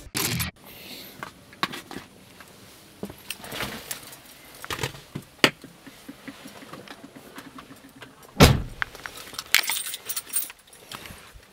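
Scattered clicks and knocks, with one loud thump about eight and a half seconds in.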